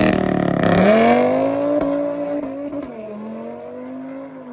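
Straight-piped Audi RS3's five-cylinder engine accelerating away through the gears, its pitch climbing, dropping at a gear change about three seconds in, then climbing again, and growing fainter as the car pulls away.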